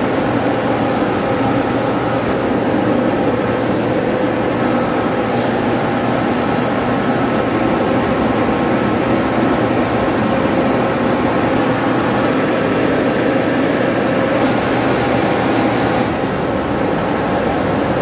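Loud, steady drone of running machinery, with several held tones over a broad hum and a slight change about sixteen seconds in.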